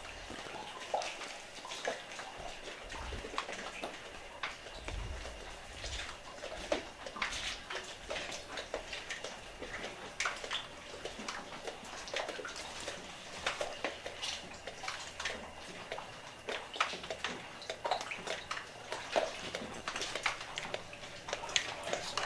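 Footsteps crunching over fallen plaster and debris on the floor, a run of irregular crackles and crunches.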